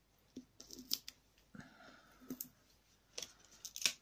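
Faint scattered clicks and short scratchy rustles of fingers handling card and picking at a strip of foam adhesive dimensionals on their backing. The sharpest clicks come near the end.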